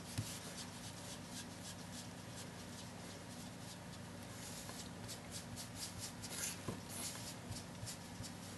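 Sponge applicator rubbing and dabbing ink across card stock: a run of quick, irregular scratchy strokes.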